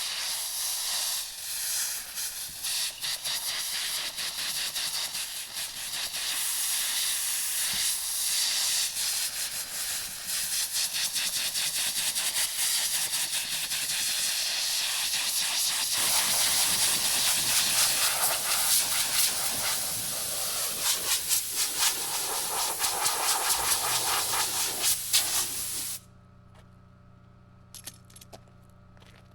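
Compressed-air blowgun blowing dust out of an excavator's dry air filter element: a loud, continuous hiss that flickers rapidly as the air jet moves over the element, cutting off abruptly near the end.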